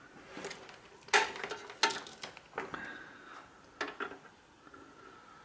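Several light metallic clinks and taps from handling the opened electric hot plate's sheet-metal case and wiring. There are about five, spread over a few seconds, and the loudest comes a little over a second in.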